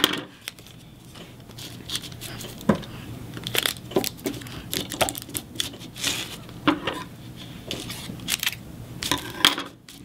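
Clear sticky tape being pulled from its roll and pressed down onto cardstock, with irregular crinkling and light clicks and taps as the paper and parts are handled.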